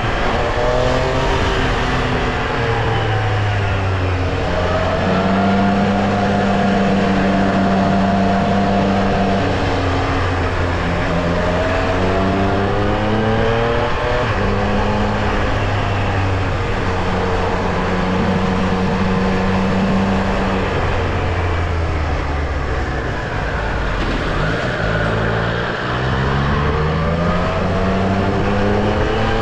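Triumph Street Triple R's inline three-cylinder engine under way, the revs rising and falling again and again with throttle and gear changes, holding steady for a few seconds at a time.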